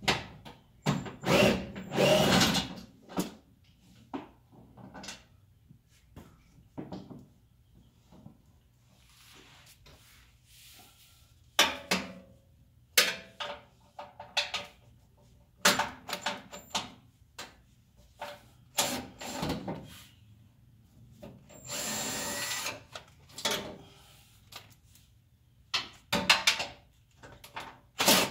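Tools and metal clattering and knocking while the bolts of a steel underbody skid plate are worked loose. A cordless drill-driver runs in short spurts, the longest about two seconds and a little after the middle.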